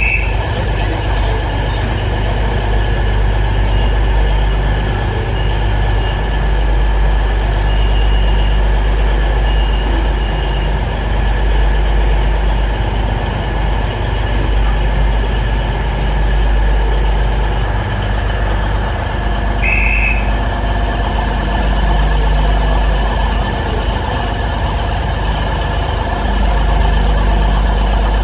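Diesel train engine idling steadily with a constant low hum, with a short high blip about twenty seconds in.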